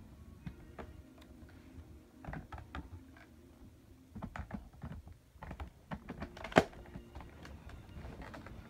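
Irregular clicks and rattles of plastic Nerf Modulus blaster parts being handled and fitted together, with one sharp, loud click about six and a half seconds in.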